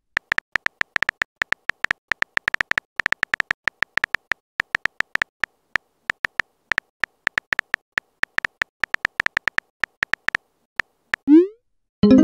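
Phone keyboard typing sound effect: a fast, uneven run of short identical electronic ticks, one per keystroke, for about ten seconds. Near the end a short rising whoosh marks the message being sent.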